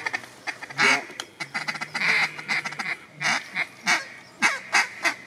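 Duck quacking: a string of loud, separate quacks spaced irregularly, about half a second to a second apart.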